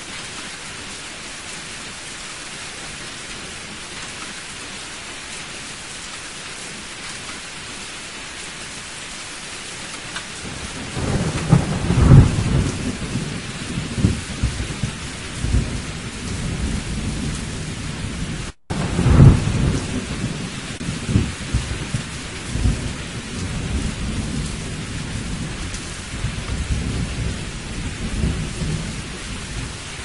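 Steady heavy rain, joined about ten seconds in by rolling thunder that rumbles on with two loudest peaks. There is a split-second gap in the sound just before the second peak.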